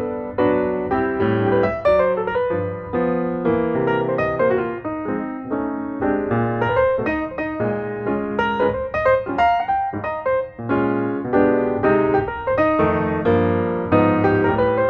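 Background piano music: a melody over chords and a bass line, notes struck one after another without a break.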